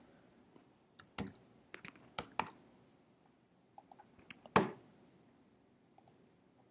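Computer keyboard typing: a dozen or so scattered keystrokes and clicks as a spreadsheet formula is typed in, the loudest about four and a half seconds in.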